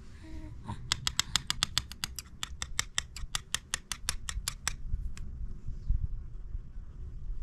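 Metal spoon stirring food in a small bowl, clinking against the bowl about six times a second for nearly four seconds, then a single last clink.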